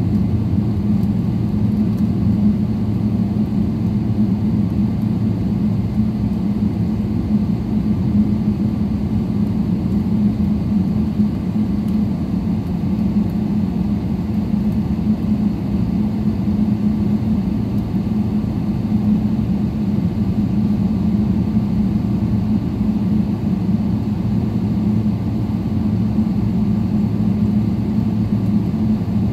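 Steady low drone inside an airliner cabin as the jet taxis, its engines running at low power. It holds an even pitch and loudness with no surges.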